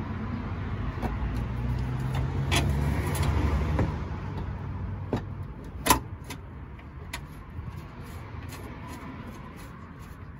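Hands fitting a fog light into a pickup's bumper make scattered small clicks and knocks of plastic and metal, with the sharpest click about six seconds in. Under them a low vehicle engine hum swells and fades over the first four seconds.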